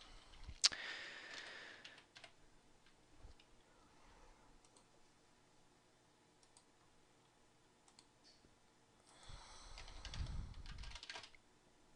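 Faint computer keyboard typing and mouse clicks, scattered at first, with a denser run of keystrokes about nine to eleven seconds in.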